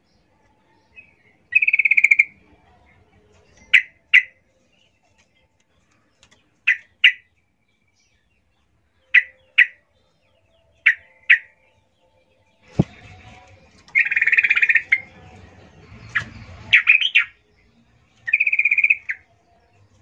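Female yellow-vented bulbul calling to draw a male: pairs of short, sharp chirps every two to three seconds, with three longer buzzy notes. A knock and a few seconds of rustling come in the middle.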